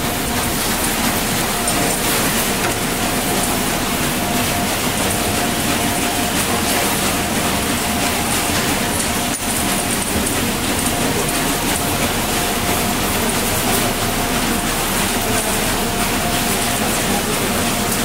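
Steady mechanical din of a garbage-sorting plant: a conveyor belt loaded with rubbish and its machinery running continuously, with a faint steady hum underneath.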